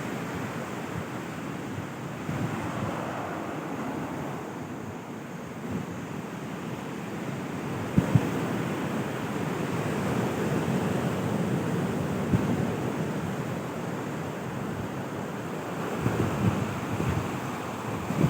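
Sea waves washing onto a beach, with wind buffeting the microphone. There are a couple of brief knocks, about 8 and 12 seconds in.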